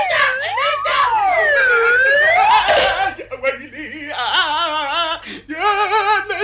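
Cartoon soundtrack effect: a smooth pitched tone swooping slowly up and down, then, from about three seconds in, a quavering, trembling sound in short broken phrases.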